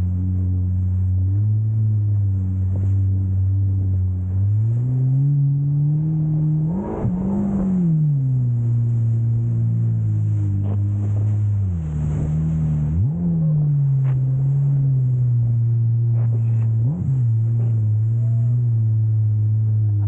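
Jet ski engine running hard under throttle. Its pitch climbs about a quarter of the way through, dips briefly a little past the middle, and twice later makes a short, quick rise and fall.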